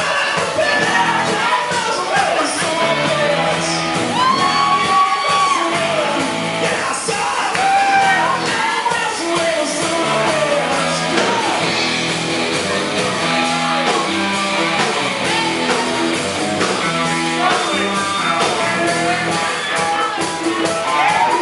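Rock band playing live, with a singer's shouted vocal over the band in a large room.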